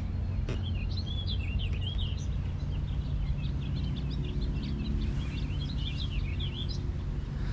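Songbirds chirping and singing almost continuously over a steady low background rumble, with a single sharp click about half a second in.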